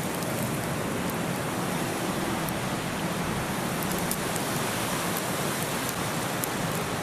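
Small hail and drizzle falling: a steady hiss with a few sharp ticks of ice pellets striking.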